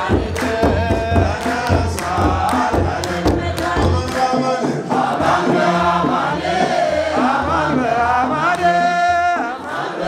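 A congregation chanting together to the beat of kebero drums and hand-clapping. The drums stop about four seconds in and the chanting goes on, with one strong held voice standing out near the end.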